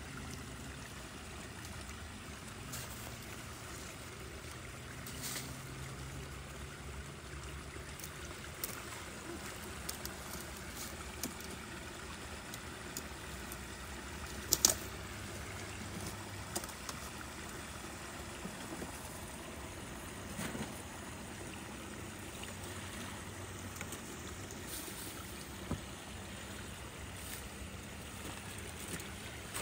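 Water trickling steadily while sticks and debris are pulled out of a beaver dam blocking a culvert, with occasional sharp knocks, the loudest about halfway through.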